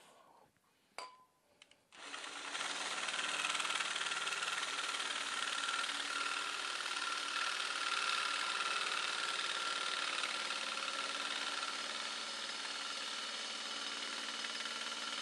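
Impact wrench hammering steadily and without a break for about thirteen seconds, starting about two seconds in after a single click, working on a very tight fastener that will not let go.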